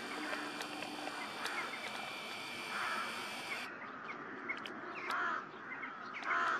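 Crows cawing: single harsh caws spaced a second or more apart, the loudest near the end, over steady background hiss.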